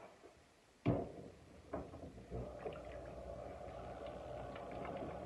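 A lump of wet clay slapped down onto clay already centred on a spinning potter's wheel, one sharp thud about a second in. Then a steady wet swishing that builds slowly as the clay is pressed down and worked on the turning wheel.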